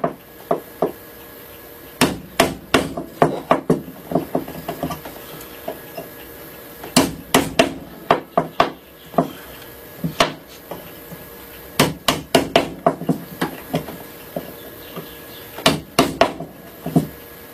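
Hammer tapping on a wooden workpiece: sharp knocks come in bursts of several quick blows, with short pauses between bursts.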